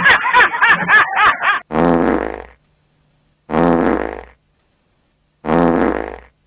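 A comic fart sound effect played three times, each blast just under a second long with dead silence between, after a brief stretch of laughter at the start.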